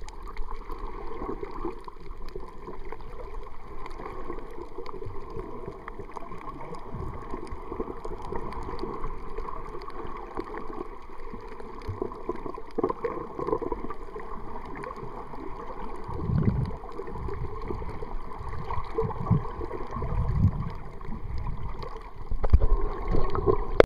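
Muffled underwater water noise picked up by a camera submerged in the sea: a steady rushing hiss with occasional low whooshing surges, several in the last third, the loudest near the end.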